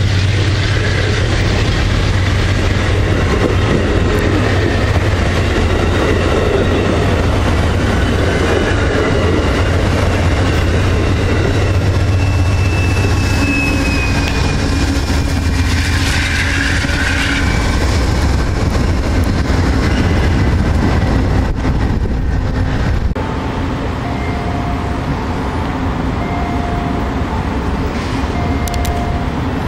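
Amtrak passenger train passing close by: steady wheel and rail noise from the coaches with a deep engine hum, a brief thin squeal about twelve seconds in, and the GE Genesis diesel locomotive running past about halfway through. The noise eases off a little after about 23 seconds as the train moves away.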